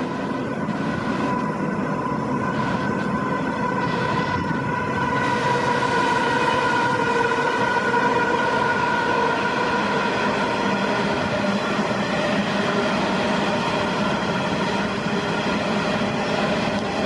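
Diesel locomotives hauling an empty coal train going by, engines running with a steady rumble and a whine of several tones that swells gently toward the middle and then holds.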